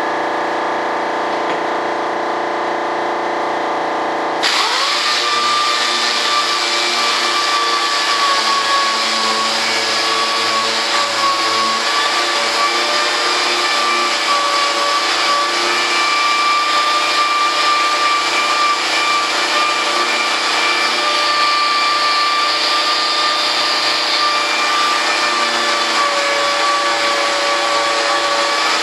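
An electric shop machine's motor running steadily, a steady whine over a rushing noise. About four and a half seconds in, the sound changes abruptly from a steadier hum.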